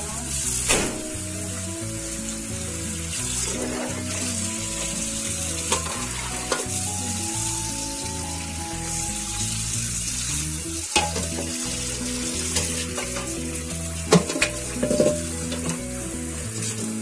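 Tap water running onto an aluminium wok as it is scrubbed with a steel-wool scourer and rinsed, with a few sharp knocks of metal against metal. Background music plays underneath.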